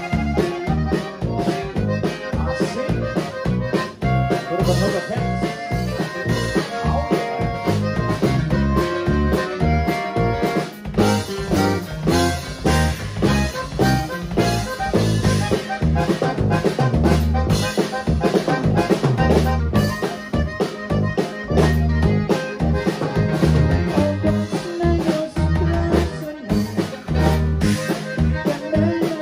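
Live conjunto band playing: a red button accordion leads over electric bass, drum kit and acoustic guitar, with a steady drum beat.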